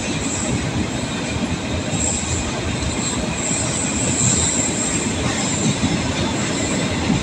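Loaded container freight wagons rolling past on the rails, a steady rumble and rattle of wheels and couplings, with a thin high squeal from the wheels coming and going a few times.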